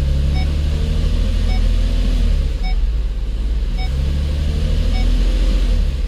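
2007 Lincoln MKZ's 3.5-litre V6 idling in reverse against the brake, a steady low hum heard from inside the cabin. A short chime repeats about once a second, the car's reverse-gear warning.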